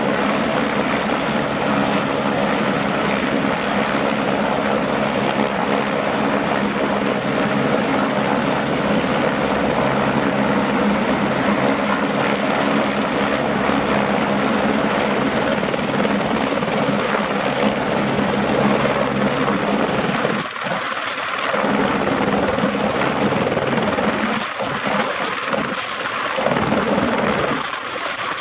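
Airbus AS350 AStar (H125) helicopter running steadily, its turbine and rotors making a loud, even sound with several steady tones. Near the end the sound thins and dips in patches as the low notes drop away.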